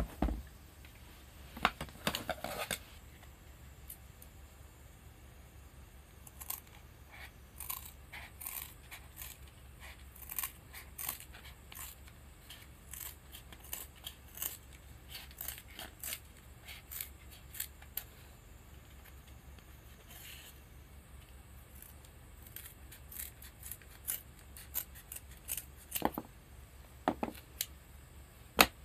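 Scissors snipping through thin vegetable-tanned leather in a long run of short cuts, with a few louder handling knocks near the start and near the end.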